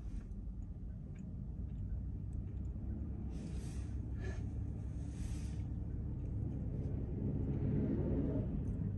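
Car driving on a city road: a steady low engine and road rumble that grows slightly louder, with two brief whooshes a few seconds in and a rising tone near the end.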